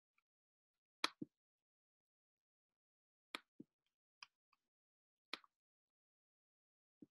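A handful of sharp clicks from a computer being operated, about five in all, most followed a fraction of a second later by a softer, duller click, with near silence between them.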